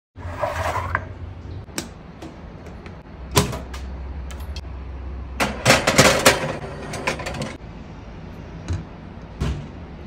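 Metal muffin tin clattering and knocking as it is slid onto the wire rack of an electric countertop oven, loudest in a burst of clanks about six seconds in. Scattered knocks and clicks before and after, over a low steady hum.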